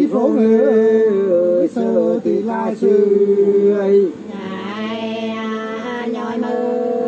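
Two men singing hát sli, the Nùng two-voice folk song, unaccompanied, in long held and wavering notes with the two voices moving apart and together. The singing grows softer about four seconds in.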